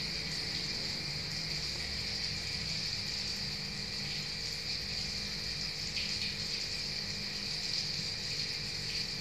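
Home-made aquarium sand waterfall running: a steady sound of bubbling, trickling water over a low hum, with a constant high-pitched hiss on top.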